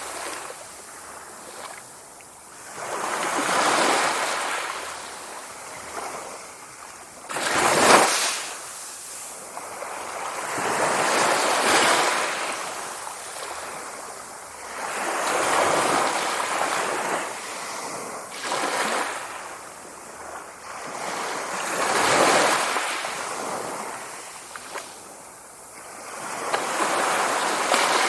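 Sea waves breaking and washing back in a steady rhythm, a surge of surf about every four seconds, with one sharper, louder crash about eight seconds in.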